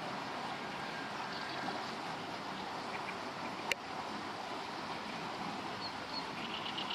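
Steady rushing of flowing river water, with one sharp click about halfway through and faint high chirps near the end.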